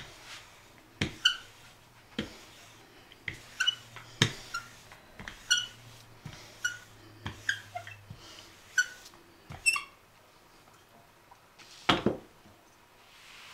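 Wooden handled rolling pin working cold pastry dough on a wooden board: a knock with a short high squeak on most strokes, about one or two a second, stopping about ten seconds in. One louder knock follows near the end.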